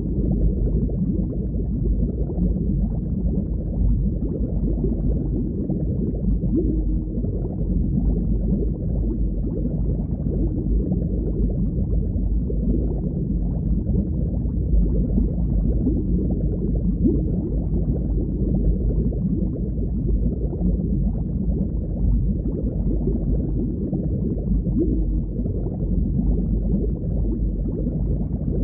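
Underwater ambience: a steady, deep, muffled rush of water with no breaks.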